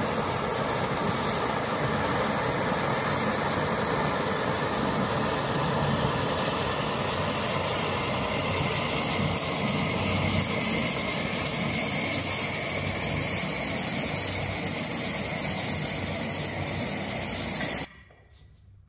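Pressure cooker on a canister gas stove running at high heat: a steady hiss from the burner and venting steam. It cuts off abruptly about a second before the end.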